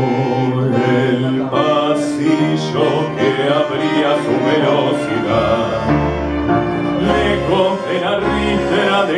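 A small live ensemble of double bass, violins and piano playing a song, with a singer's voice over it. Deep double-bass notes come in strongly from about halfway through.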